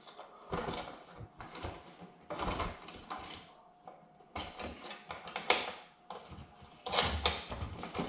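Irregular scraping, rustling and light knocks and clicks of an in-ceiling speaker being handled into its ceiling cutout and fastened by hand.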